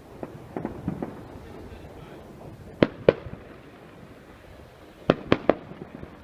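Fireworks going off: scattered sharp bangs and pops. The loudest come as two bangs about three seconds in and a quick run of three just after five seconds.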